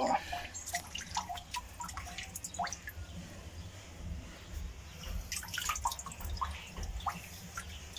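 Small splashes and drips of pond water as a hand scoops in the water and water runs off a cupped palm, in short irregular drops.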